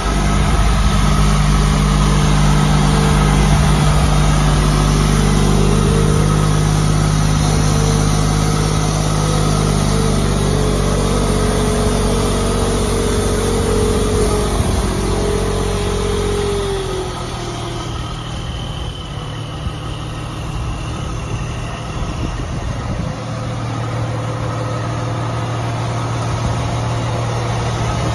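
Heavy dump truck's diesel engine running at a raised speed, then dropping back to a low idle about seventeen seconds in, where it runs steadily to the end.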